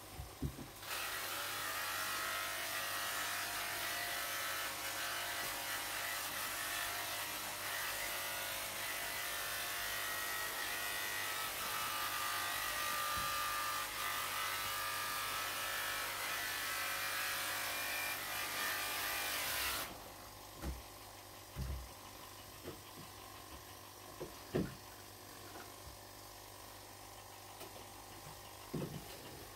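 A small electric motor running with a steady whirring hiss, which cuts off suddenly about twenty seconds in. A few faint clicks and knocks follow.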